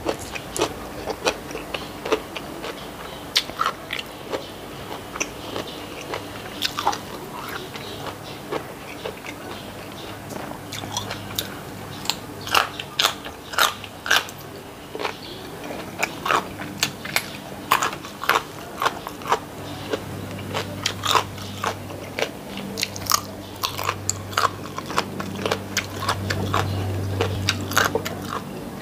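Close-up eating sounds: irregular crisp crunches and chewing as mouthfuls of food and raw vegetables are bitten and chewed. A low hum sits in the background in the second half and grows near the end.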